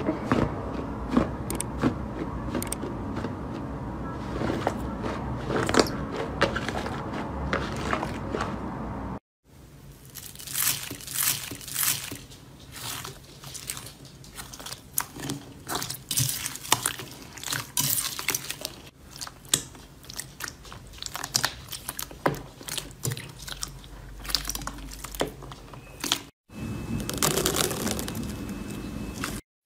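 Crunchy slime being pressed and squeezed, crackling and popping, in three clips split by brief cuts to silence. The first clip is a dense, steady crackle; the middle one is a string of sharper, separate crackles and pops.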